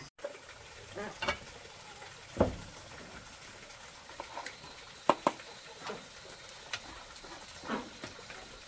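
Metal spoon clinking and scraping against a cooking pan and bowl as food is stirred and dished up: scattered short clicks and knocks, with a heavier knock about two and a half seconds in and two sharp clicks a little past halfway.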